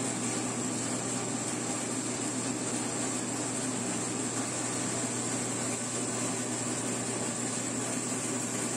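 Motor-driven Arenas grinding mill running steadily, grinding soaked rice with toasted cacao and cinnamon into a wet paste.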